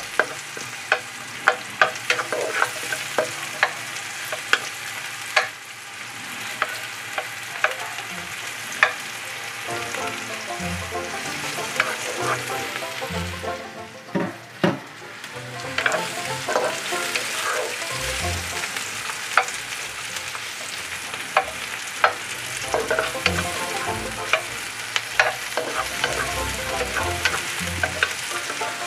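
Sliced onion sizzling in hot oil in a wok, a steady hiss. Frequent short clicks and scrapes come from a wooden spatula stirring the onion against the pan.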